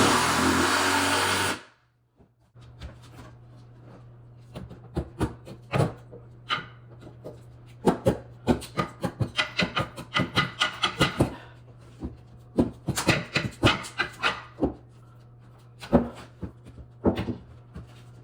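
Old table saw cutting wood, stopping abruptly about a second and a half in. Then a steady low hum with a long run of irregular knocks and clicks.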